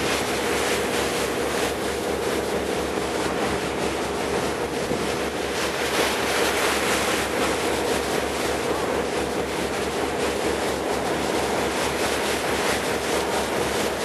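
A boat engine running steadily with a fast, even low throb, over water rushing past the hull and wind on the microphone.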